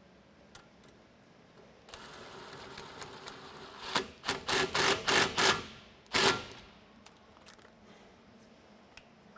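Cordless driver with a nut-driver bit tightening a worm-screw band clamp on a hose. The motor runs steadily for about two seconds, then comes a run of short loud bursts as the screw is driven home, with one last burst a little later.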